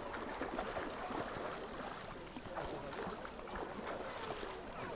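Beach ambience: a steady wash of water and wind, with a background murmur of many people's voices at a distance.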